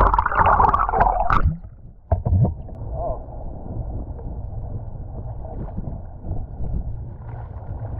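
Water gurgling and sloshing over a camera held just under the surface, cutting off about a second and a half in. A sharp knock follows, then a steady low rush of wind and lapping water around a kayak.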